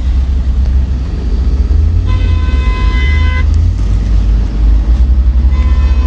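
Danfo minibus in moving city traffic: a steady low engine and road rumble, with a vehicle horn sounding for about a second midway and another horn starting near the end.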